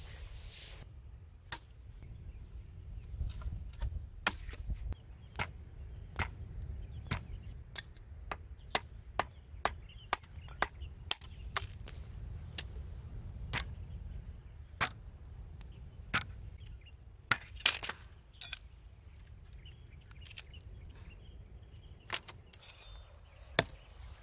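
Irregular sharp knocks, some coming in quick runs, over a low steady rumble.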